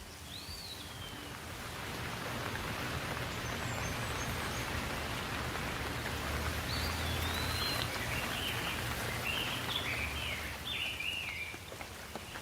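Steady rain falling, building up about two seconds in and easing off near the end. Birds chirp over it, a whistle near the start and a run of short calls in the second half.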